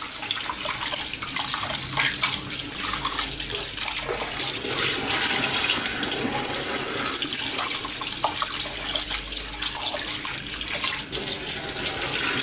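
Kitchen tap running into a glass bowl of raw chicken pieces in a steel sink, the water splashing steadily as hands rub and turn the pieces, with a few light knocks from handling.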